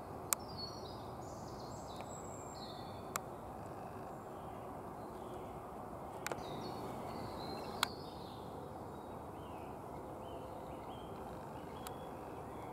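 Outdoor woodland ambience: a steady background hiss with faint bird song, one phrase near the start and another about halfway through. A few sharp, isolated clicks are scattered through it.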